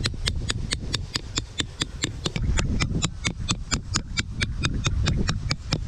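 Short peg hammer with a brass head tapping a tent peg into the ground, a fast even run of sharp, slightly ringing metallic taps at about five a second.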